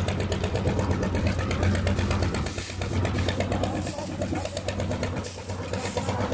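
Concrete mixer's engine running steadily with a fast, even beat and a constant low hum.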